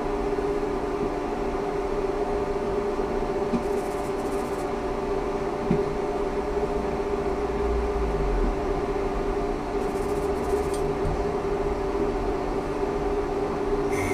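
Steady electric hum with several held tones from an Ikarus 280T articulated trolleybus's electrical equipment, over a low rumble, with a few faint knocks.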